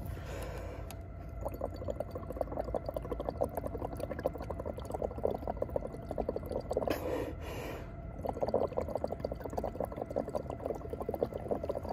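Breath blown through a straw into a flask of indicator solution, bubbling in a rapid, continuous burble, with a short break about seven seconds in. The exhaled carbon dioxide is turning the solution from blue to yellow.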